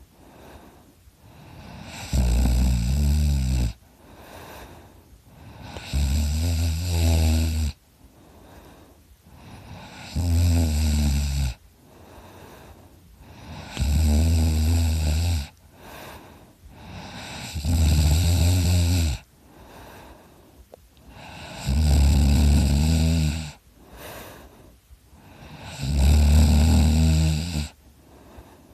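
A person snoring in deep sleep: seven loud, low snores, one about every four seconds, each lasting about a second and a half, with softer breathing in between.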